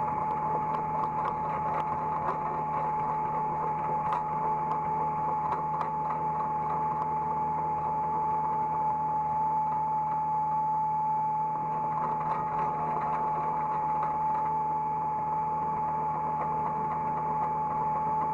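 Hydraulic excavator running steadily, heard from the operator's cab: the engine's low hum with a steady high whine from the hydraulics, and scattered small clicks and knocks, more of them in the first few seconds and again past the middle.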